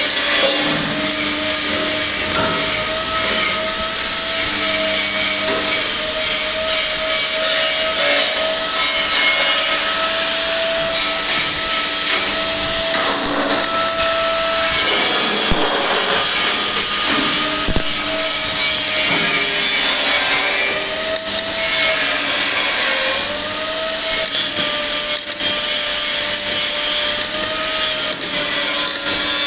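A power tool with a whining motor working on metal, its pitch sagging now and then under load, over a rasping scrape that repeats a few times a second in places.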